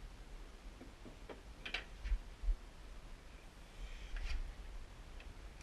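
A few scattered light clicks and knocks from lathe parts being handled, most likely the tailstock on the bed. There are two low thumps about two seconds in.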